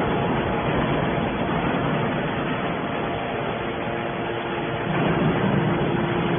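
Hydraulic scrap iron baler running, a steady machine noise with a faint steady hum, a little louder about five seconds in.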